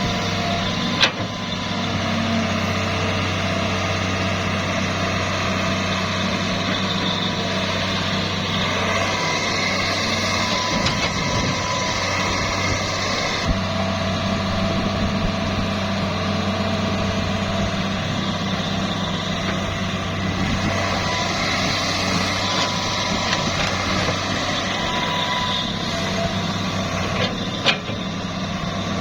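Construction machinery engine running steadily, with a sharp knock about a second in and another near the end.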